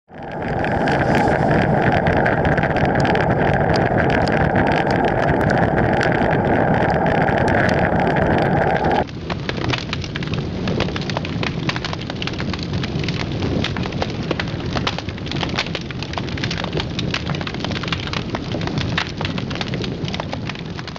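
Loud, steady rushing noise with crackling throughout, changing character abruptly about nine seconds in.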